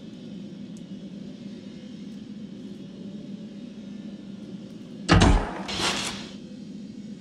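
Steady low hum, broken about five seconds in by a sudden loud impact followed by a short rushing swish.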